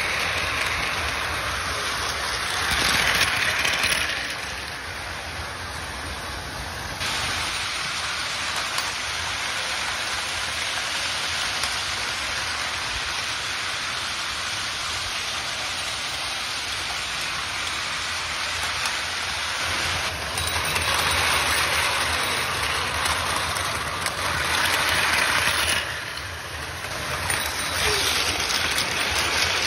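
Plarail battery-powered toy trains running on plastic track: a steady whirring rattle of small motors, gears and plastic wheels. It swells when trains pass close, about three seconds in and again for most of the last ten seconds.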